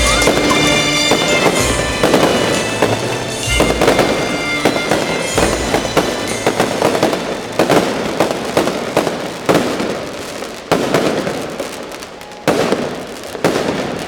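Fireworks going off: a steady string of sharp bangs and crackling, with music playing underneath.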